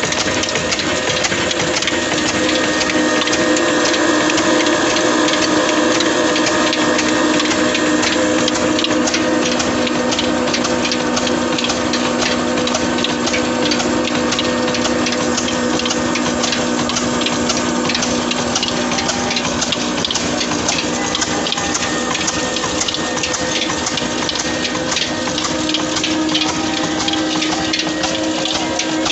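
Old black desi stationary engine of 26 hp, a diesel, running steadily under load and driving a chakki flour grinder through flat belts. The mix is a continuous mechanical din with a rapid ticking clatter and a steady hum.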